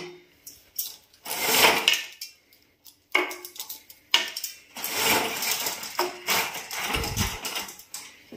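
Plastic bead-chain cord of a zebra roller blind pulled in several strokes, the chain rattling through the blind's clutch as the blind rolls up.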